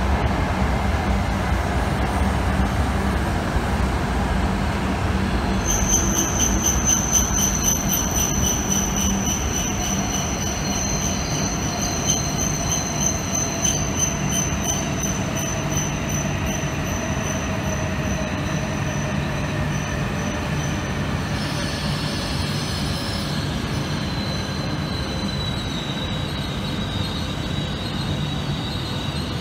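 E5 and E6 series shinkansen train running alongside the platform as it brakes to a stop. A high steady squeal starts about six seconds in and lasts to about twenty seconds, and under it a lower whine slowly falls in pitch as the train slows.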